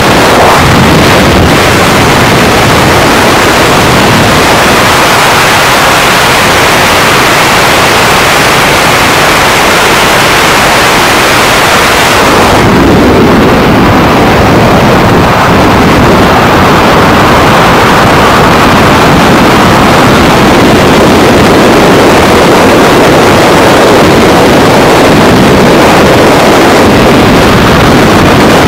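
Loud, steady rush of freefall wind buffeting the camera's microphone during a skydive; the high hiss eases slightly about twelve seconds in.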